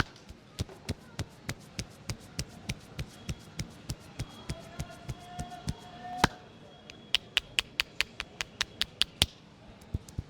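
Rhythmic hand tapping of a head massage, about three slaps a second at first. After one louder slap about six seconds in comes a quicker, louder run of slaps.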